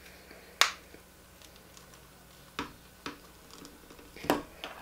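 Small plastic toy doll parts clicking and tapping as hair pieces are pushed onto a mini doll: a few sharp clicks, the loudest about half a second in.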